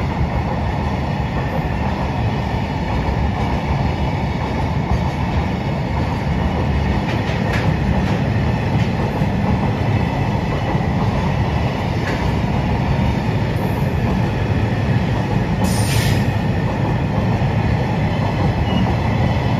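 Freight train's container flat wagons passing at speed: a steady rumble of steel wheels on the rails, with a brief high-pitched noise about sixteen seconds in.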